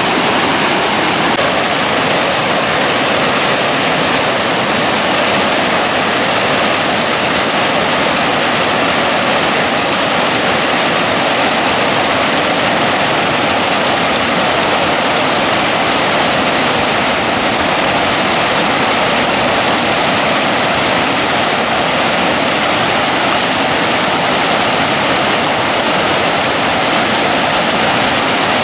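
Loud, steady rush of a swollen mountain river running in whitewater rapids over rocks, close by, high with spring snowmelt.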